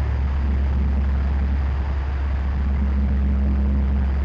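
Steady low mechanical rumble, with a faint hum over it that drops out for about a second midway.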